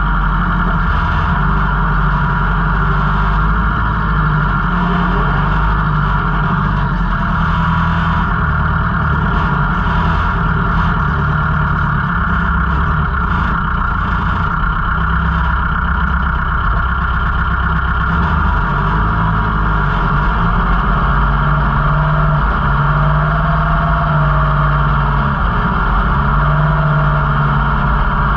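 Kubota L5018 tractor's diesel engine running steadily, heard from the driver's seat as the tractor drives through dry corn stalks.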